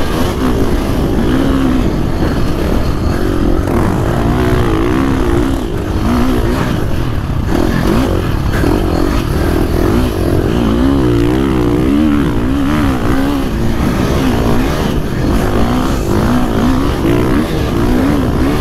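KTM 450 SX-F four-stroke single-cylinder motocross engine heard on board while riding through deep sand, its revs rising and falling again and again as the throttle is worked over the holes.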